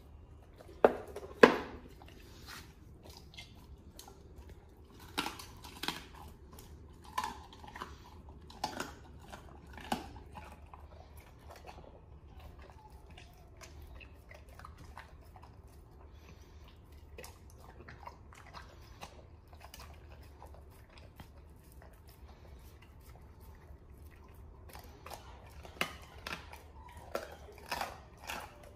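A large dog biting and chewing raw meat: wet, crunching bites, the two loudest about a second in. The chewing goes quieter through the middle, then the crunching picks up again near the end.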